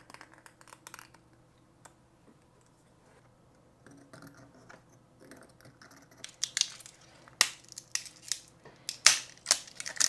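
Hard 3D-printed plastic parts being worked and handled: faint scraping and small clicks while support material is cleaned off, then from about six seconds in, sharp clacks as the printed wheels knock together.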